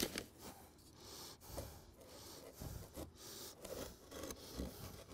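Limestone screenings being poured around a deck post on a concrete block: faint, irregular gritty sounds that come and go.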